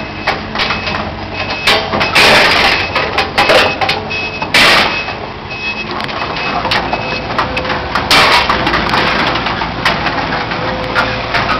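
Heavy demolition machinery working: a diesel engine rumbles under repeated crunching and crashing of debris, loudest about two, four and a half and eight seconds in. A reversing alarm beeps intermittently at one high pitch.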